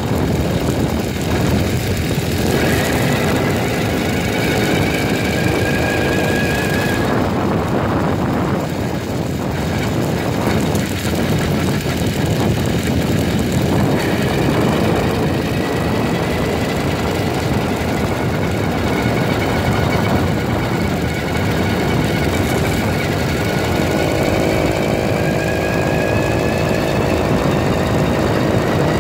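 80cc Bullet Train motorized-bicycle engine running under way, its pitch climbing several times as the bike picks up speed. Heavy wind rushes over the handlebar-mounted phone's microphone throughout.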